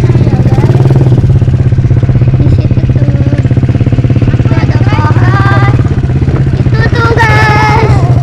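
A small engine running steadily close by with a fast, even beat. Voices call out briefly about halfway through and again near the end.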